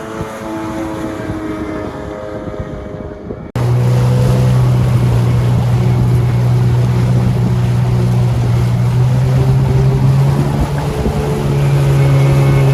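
Jet ski engine running steadily on the water. About three and a half seconds in the sound jumps to a louder, lower-pitched steady drone, which steps up slightly in pitch near the end.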